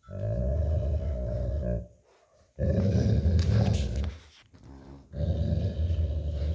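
Old golden retriever growling in play during a tug-of-war over a plush toy: three long, low growls with short breaks between them.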